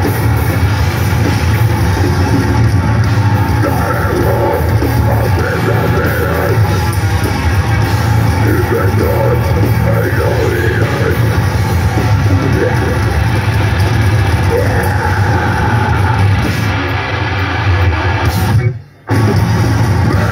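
Grindcore band playing live at full volume: distorted guitars, bass and drums under a vocalist's harsh screamed vocals. The music cuts out for a split second near the end, then crashes back in.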